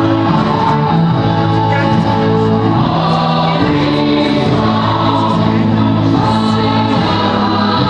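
Choral music: a choir singing long, sustained chords that change slowly, playing steadily throughout.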